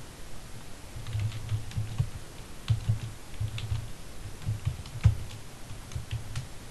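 Typing on a computer keyboard: quick, irregular key clicks, each with a dull thud, starting about a second in.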